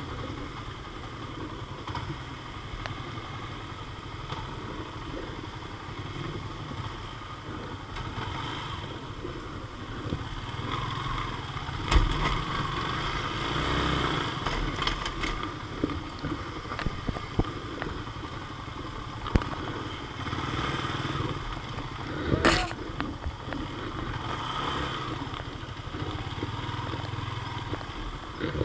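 Yamaha Sniper underbone motorcycle's single-cylinder four-stroke engine running at low speed on a rough dirt trail. Clattering knocks come as the bike jolts over rocks, the sharpest a little before halfway and again about three quarters through.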